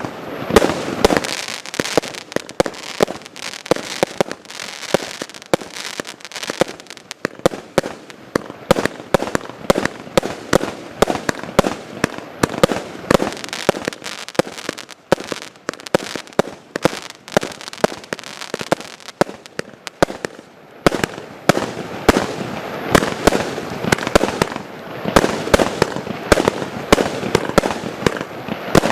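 Klasek fireworks going off: a dense, continuous run of sharp bangs and crackling, with louder flurries every few seconds.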